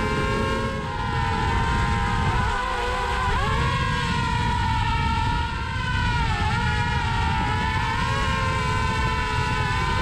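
DJI Mavic Air quadcopter's propellers buzzing in flight: a steady multi-tone whine that dips and recovers in pitch twice as the motors change speed, over a heavy rushing noise.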